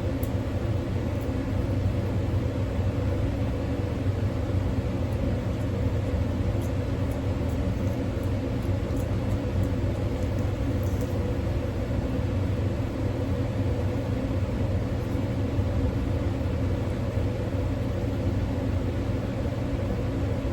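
Steady low mechanical hum, unchanging throughout, with a few faint ticks.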